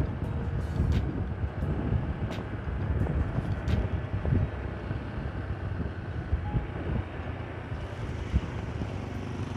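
Wind buffeting the microphone over the running engine of a Honda Click 150i scooter while riding, a steady rough rumble with a few faint clicks in the first few seconds.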